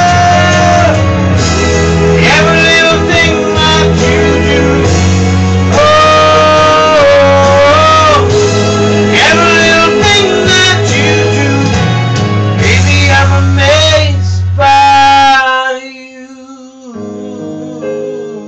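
A ballad sung over a band backing with guitar and a steady bass. About fifteen seconds in the full backing falls away and a quieter, softer passage follows.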